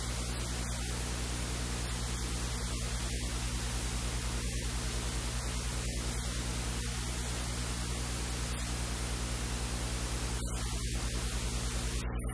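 Steady static hiss with a low electrical hum underneath: recording noise with no other clear sound.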